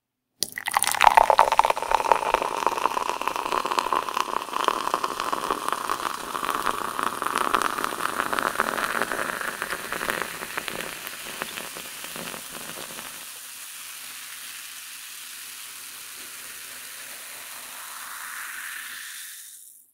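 Carbonated energy drink poured into a glass. The pour splashes for about ten seconds, its pitch rising slightly as the glass fills, then the bubbles fizz steadily in the full glass until the sound fades out near the end.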